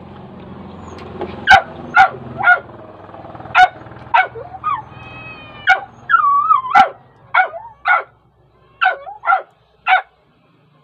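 A dog barking: a string of about a dozen short yapping barks, with a longer wavering whine around the middle.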